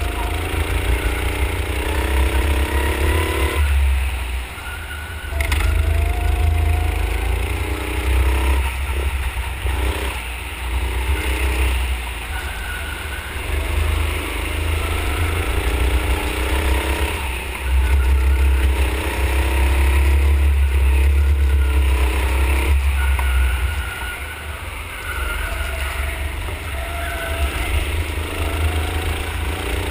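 Onboard go-kart engine running at speed, climbing in pitch as the kart accelerates down each straight and falling away when it lifts for the corners, several times over, with a heavy low rumble throughout.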